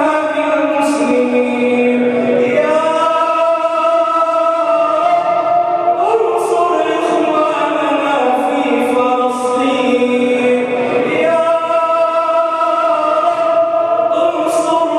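A man's voice chanting a du'a, an Islamic supplication, in long, drawn-out melodic notes with slow ornamented glides, amplified through a handheld microphone.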